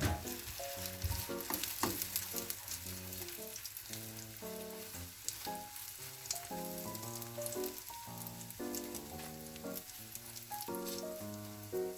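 Food frying and sizzling in a pan, a steady crackle with small pops, under a gentle background music melody.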